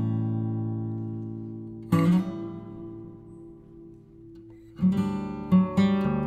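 Background acoustic guitar music: strummed chords left to ring and fade, one about two seconds in, then quicker strums near the end.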